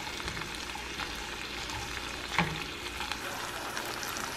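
Brussels sprouts, peppers and mushrooms sizzling steadily in a nonstick frying pan while being stirred with tongs, with a single clack of the tongs about two and a half seconds in.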